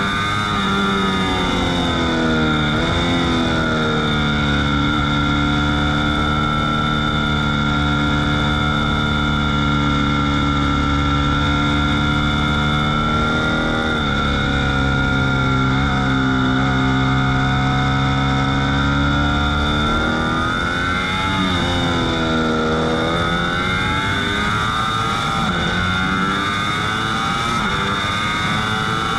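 Ducati V4 S motorcycle's V4 engine at full track speed, heard on board. The engine note climbs near the start with a quick dip for a gear change, holds high through the middle and steps down about halfway. About two-thirds of the way in it drops sharply and then climbs again, as when braking and downshifting for a corner and accelerating out.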